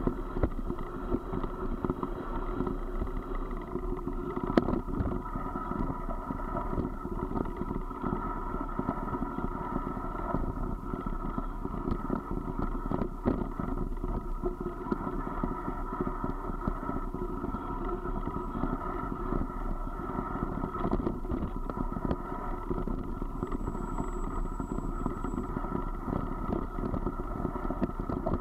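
Tyres rolling fast over a loose gravel track: a continuous rumble and rattle with many small irregular knocks from stones and bumps, one sharper knock about four and a half seconds in.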